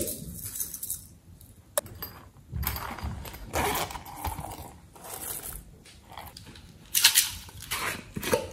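Hands picking up and handling soft rubber squishy toys and a silicone pop-it, rubbing and rustling noises with a sharp tap at the start and another shortly after.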